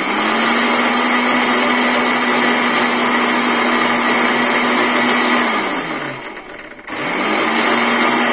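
Electric grinder-blender motor running steadily at high speed, dry-grinding cumin seeds and black peppercorns to powder. About five and a half seconds in it is switched off and winds down, then about a second later it is switched back on and spins up again.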